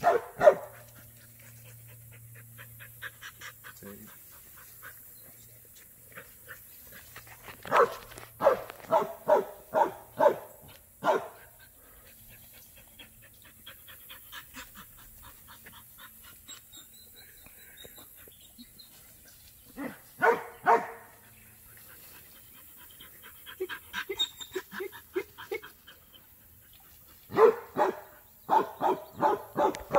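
Hog-hunting dogs barking in bouts of quick, repeated barks separated by quieter pauses, the loudest bark right at the start.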